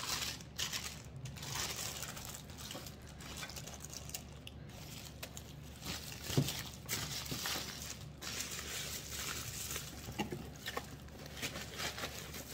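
Plastic packaging crinkling and rustling as items are handled and unwrapped by hand. There are many small crackles throughout and one brief louder sound about six seconds in.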